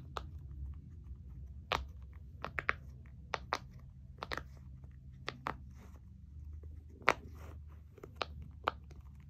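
Silicone rainbow circle pop-it fidget toy being popped on its loud side, bubble by bubble: a string of sharp, irregular pops, roughly two a second.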